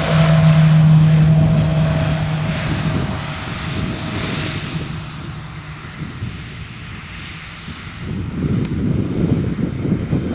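Short SC7 Skyvan's twin Garrett TPE331 turboprops at takeoff power, a steady low propeller tone that fades as the aircraft runs away down the strip and lifts off. Wind buffets the microphone over the last couple of seconds.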